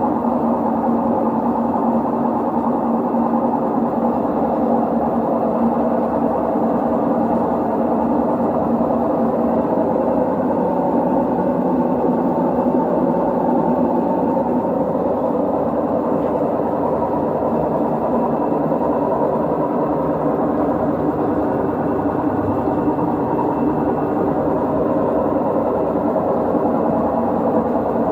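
LG direct-drive washing machine spinning, with a loud, steady mechanical noise that holds at one level throughout.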